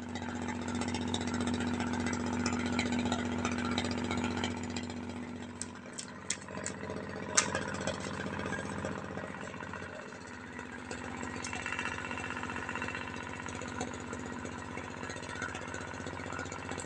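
A steady machine hum, like an idling engine, runs throughout. A cluster of sharp clicks comes a little before halfway, and one more about two-thirds through.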